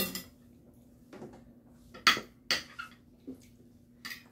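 Metal chopsticks clinking against a ceramic plate while picking up momo dumplings: a few short sharp clinks, the two loudest about two seconds in, half a second apart.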